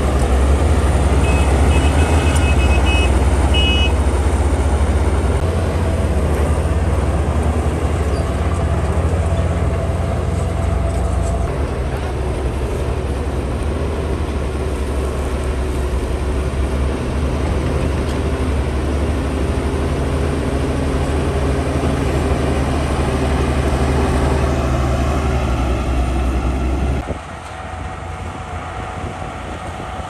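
Bulldozer's diesel engine running hard under load, a steady deep drone with a few short high beeps a couple of seconds in; near the end the engine note drops sharply and runs on quieter.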